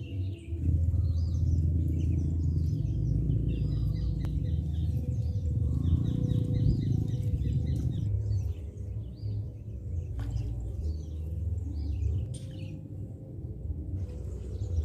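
Small birds chirping and twittering repeatedly over a loud, steady low rumble.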